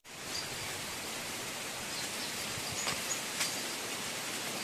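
Steady outdoor background hiss, with insects chirping faintly and a couple of light clicks about midway.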